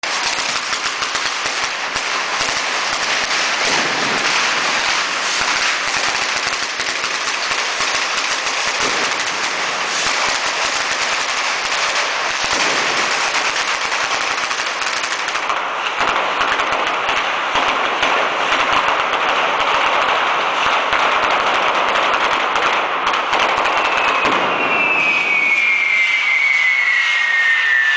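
Fireworks and firecrackers packed on the Scoppio del Carro cart going off in a rapid, continuous string of cracks and bangs, thinning out about halfway through. Near the end a long whistle falls slowly in pitch over the crackling.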